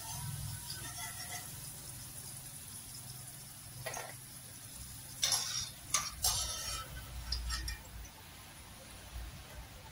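Wire spider skimmer clinking against a kadai and a steel plate as fried taro pieces are lifted out of the hot oil and tipped onto the plate, over a faint sizzle of the oil. A handful of sharp metal clinks come in the second half.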